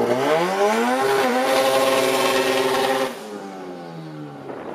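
Turbocharged VW Golf drag car's engine revving hard as it pulls away. The pitch rises over the first second, holds high for about two seconds with a rushing hiss over it, then the throttle comes off about three seconds in and the revs fall away.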